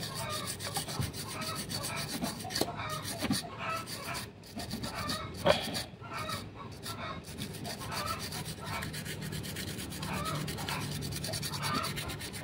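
A brush scrubbing the solder side of a TV power-supply circuit board with thinner: quick back-and-forth scratching of bristles over freshly soldered joints, washing off the soldering residue.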